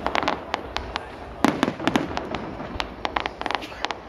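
Aerial fireworks shells bursting: a rapid, irregular string of sharp bangs and cracks coming in flurries, with dense clusters near the start, about halfway through and again after three seconds.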